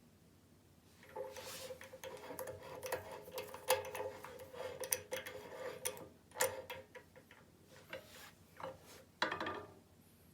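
Light metalwork on an aluminium rod: rapid clicking and scraping over a steady ringing tone for about six seconds, then three short separate clinks near the end.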